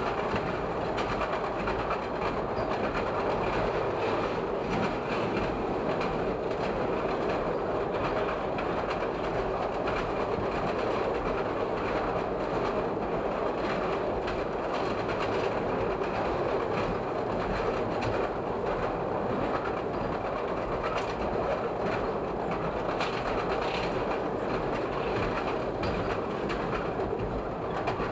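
Chicago 'L' rapid transit train running along elevated track: steady running noise with the wheels clicking over rail joints.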